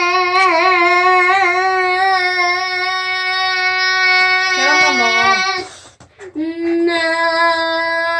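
A young boy singing loudly, holding one long steady note for about five seconds, then, after a short break, a second long held note.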